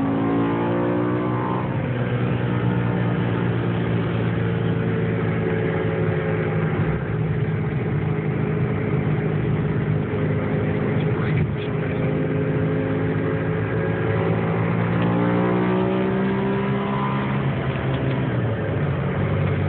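BMW M6's V10 engine, tuned to about 600 horsepower, pulling hard under full acceleration. Its pitch climbs, holds, climbs again and then falls sharply near the end.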